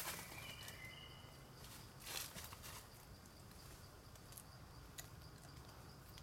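Quiet forest ambience: a faint steady high-pitched tone, two short whistled notes in the first second or so, and a few soft rustles and clicks, the clearest about two seconds in, over a low rumble.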